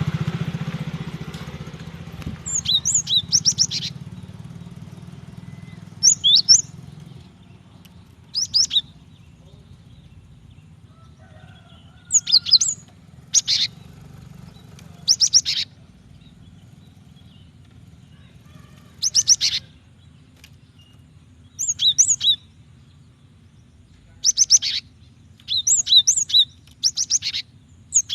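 Female cinereous tit (gelatik batu) calling: short bursts of rapid, repeated high notes, each under a second, coming every one to three seconds. Background noise fades away over the first several seconds, leaving a low steady hum.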